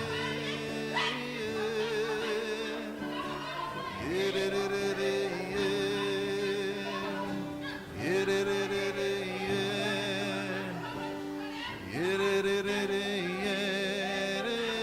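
Slow worship music: a voice sings long wordless notes with vibrato over sustained chords. Each new phrase scoops up into a swell about every four seconds.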